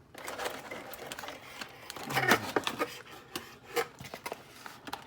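Plastic toy packaging being handled and pulled apart: rustling with sharp clicks and snaps.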